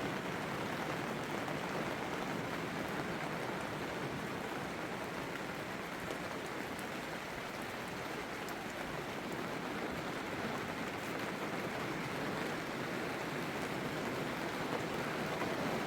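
Steady rain falling, an even hiss of raindrops on surfaces.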